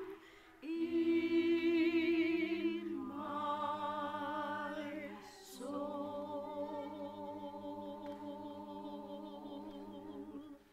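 Voices singing slow, held notes with vibrato in three phrases, with short breaths between them about three and five and a half seconds in; the last note fades out near the end.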